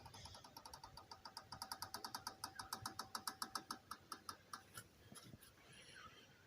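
Failing front hub bearing of a 2009 Hyundai i30 as the wheel is turned slowly by hand: a faint, rapid squeaky clicking, about ten a second, with a squeal under it for the first few seconds, slowing and dying away near the end. The bearing is rusted out from water getting in.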